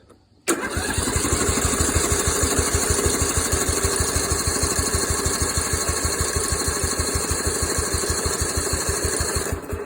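Electric starter cranking a riding mower's 14 hp Briggs & Stratton engine for about nine seconds. It turns over in a fast, even rhythm with a steady whine from the starter, but never fires: no spark, from a flywheel whose magnet had lost its pull. It starts suddenly and stops just before the end.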